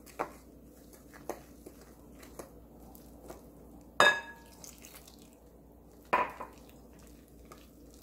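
Wooden spoon stirring pancake flour and ice water into a batter in a glass mixing bowl, with soft scraping and small clicks. About four seconds in the spoon knocks sharply against the glass bowl with a brief ring, and knocks again about two seconds later.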